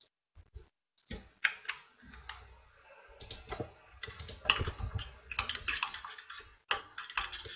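Small cosmetic dropper bottles being handled and set down on a table: a run of quick clicks and taps, sparse at first and busier from about four seconds in.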